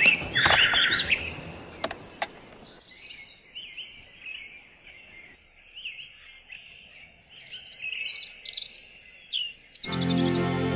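Small birds chirping and twittering over music. The music drops out about three seconds in, leaving the chirps alone, and comes back near the end as a held low chord.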